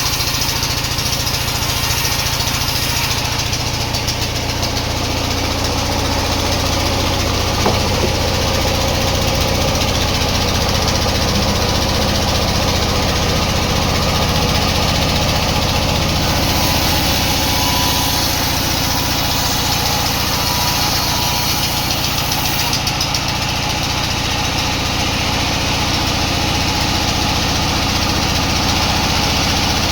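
Sawmill machinery running steadily with a constant low hum, and a single knock about eight seconds in.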